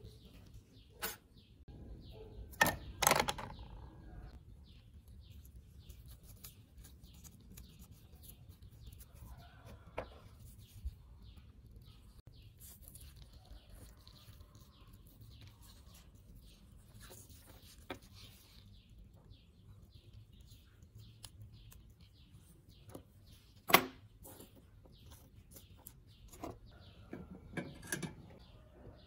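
Scattered clicks and taps of a small metal hand tool and tiny earbud parts being worked and set down on a wooden bench, the loudest a quick cluster about three seconds in and a single sharp knock a few seconds before the end. Faint high chirps of birds tick on in the background throughout.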